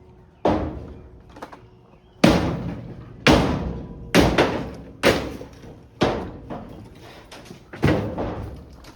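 A series of heavy thumps, about one a second with a pause of about two seconds near the end, each followed by a short echo.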